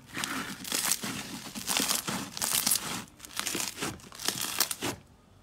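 Grainy pink slime being squeezed and kneaded by hand, crackling and crinkling in quick irregular bursts; it fades out about five seconds in.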